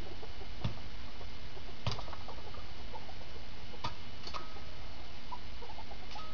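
A few faint, sharp knocks of a stick poking against a tree trunk, four in all, spaced irregularly over a steady background hiss.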